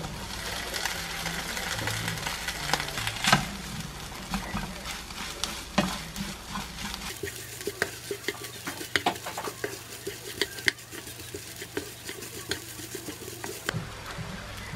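Chicken-breast and kkakdugi (radish kimchi) fried rice sizzling in a frying pan while it is stirred and turned with a spatula, with frequent light clicks and scrapes against the pan.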